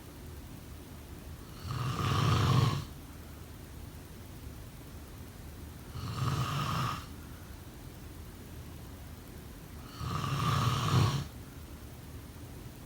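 Someone snoring: three snores about four seconds apart, each lasting about a second.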